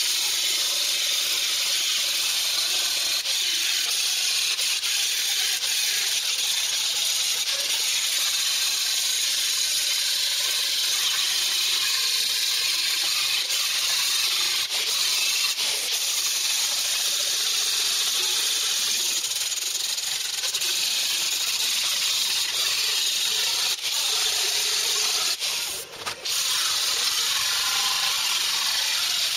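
Angle grinder grinding down welds on a steel car floor pan: a steady, high-pitched abrasive hiss that eases off briefly a few seconds before the end, then carries on.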